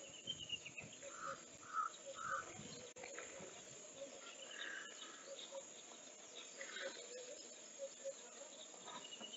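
Faint open-air ambience with scattered bird calls: a short run of high chirps at the start, then three clear notes about half a second apart, and a few more calls later. Underneath are a faint steady hiss and a soft, evenly repeated low note.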